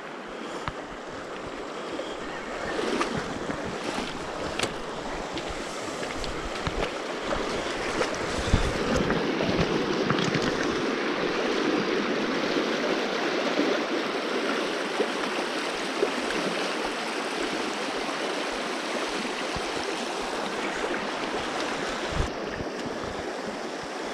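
River water rushing steadily over a shallow, stony riffle, swelling for a few seconds around the middle, with a few scattered soft knocks.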